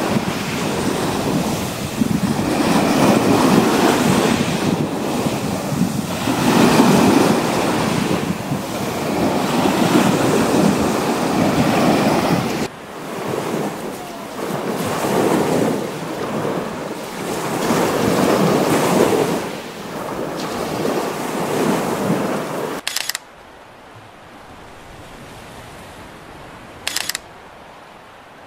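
Small waves washing in and drawing back over a shore of small white pebbles, the surf swelling and ebbing every three seconds or so. It cuts off suddenly about 23 seconds in, leaving a faint hiss with two brief soft noises.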